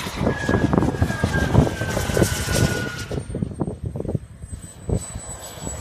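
Turbine engine of an RC model jet passing with a loud hissing whine that slides slightly down in pitch. It falls away about three seconds in to a thin, steady high whine as the jet comes in low to land. Wind buffets the microphone throughout.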